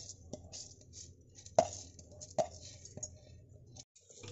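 Soaked masoor lentils being scraped off a plate and stirred with a wooden spatula in an aluminium pressure cooker: light scraping with a handful of sharp knocks against the pot, the two loudest near the middle.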